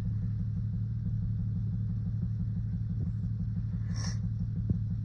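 Lexus GS300's inline-six idling roughly with an uneven low pulse, the misfire the owner takes for one dead cylinder.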